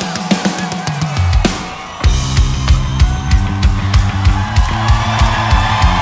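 Rock music with a steady drum-kit beat. About two seconds in it gets louder as a bass line and guitar come in with the full band.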